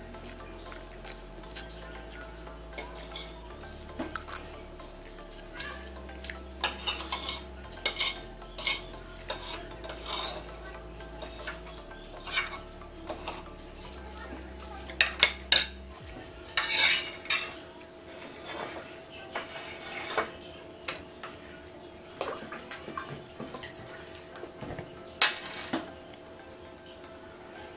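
Metal spoon and fork scraping and clinking against a ceramic plate while eating, in irregular clicks and scrapes, with a sharper clatter near the end.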